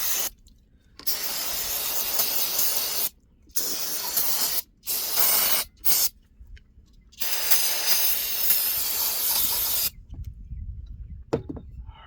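Bursts of compressed air from an air compressor hose, blown into the weed trimmer's carburetor to clear its jets and passages. There are five hissing blasts of uneven length, the longest near the end at almost three seconds, and then it stops about ten seconds in.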